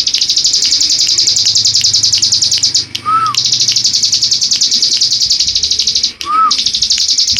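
Ciblek gunung, a prinia, singing its fast buzzing 'ngebren' trill in long runs. The trill breaks off twice, briefly, and a short lower whistled note sounds in each gap.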